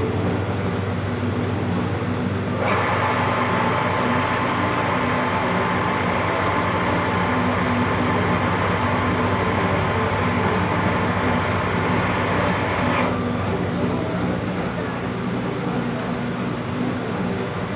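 Metal lathe running steadily with a low hum. About three seconds in, a higher whirring noise joins as a threading pass is taken in the cast iron plate, and it stops about thirteen seconds in.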